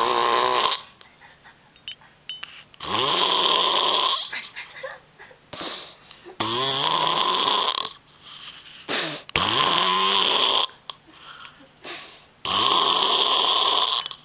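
A man snoring loudly: about five long snores, each a little over a second, coming roughly every three seconds, with much quieter breathing between them.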